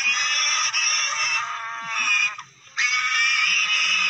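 An animal squealing in distress, in long high cries: one cry, a short break about two and a half seconds in, then a second cry. It fits prey being eaten by lionesses.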